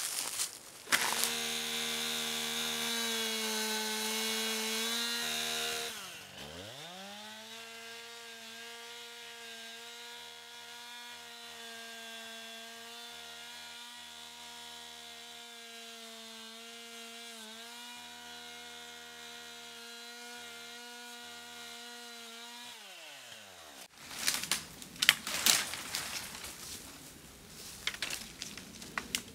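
Chainsaw starting about a second in and running at high revs. Its pitch dips briefly at about six seconds, then it runs steadily but quieter, and near the end it winds down and stops. Irregular cracking and rustling in the brush follows.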